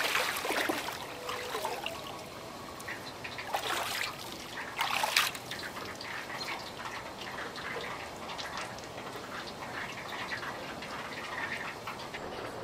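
Water pouring and splashing off a person standing up in a metal-tub ice bath, with two more splashes about three and a half and five seconds in as he climbs out. Then water sloshing and dripping in the tub.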